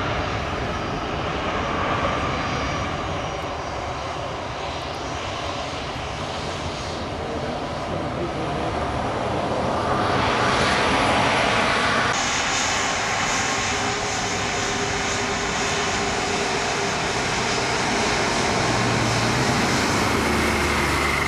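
Jet engines of an Air France Airbus A320-family airliner rushing as it rolls down the runway, swelling louder about ten seconds in. About twelve seconds in the sound changes abruptly to the steadier engine whine of a taxiing Etihad Airbus A330.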